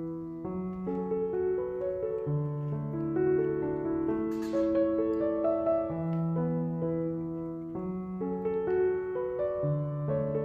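Slow, gentle background piano music, with a brief hiss about four seconds in.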